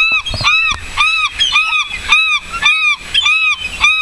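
Seagulls calling over and over, a steady run of rising-and-falling calls about three a second.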